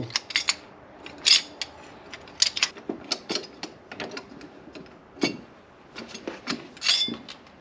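Metal hand tools and a spring-compressed shock absorber clinking and clattering on a tool cart's tray as they are handled and set down: a run of irregular sharp clicks and knocks, a few louder ones among many light ones.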